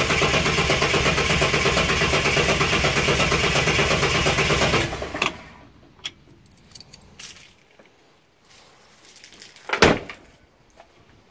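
Ford XC Falcon's 250 crossflow straight-six being cranked solidly by its starter motor, turning over in an even rhythm without firing; it won't start because its fuel pump is broken. The cranking stops abruptly about five seconds in, and a single loud thump comes near the end.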